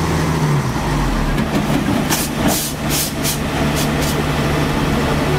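Heavy diesel engine idling steadily, with a quick run of about six short, sharp hisses in the middle.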